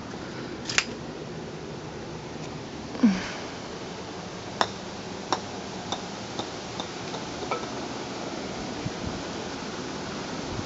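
Titleist golf ball striking brick pavers: a sharp click, a louder knock, then a run of clicks coming quicker and fainter as the ball bounces and settles. A steady outdoor hiss lies underneath.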